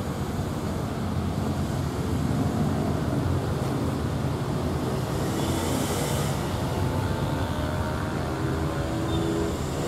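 Steady low rumble of a passenger train running away down the line, with faint tones rising slowly in pitch over the second half.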